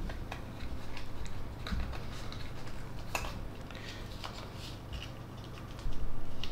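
A small cardboard box being picked and pried open by hand: scattered light clicks and scrapes of card and fingernails against the flap, with louder handling noise near the end.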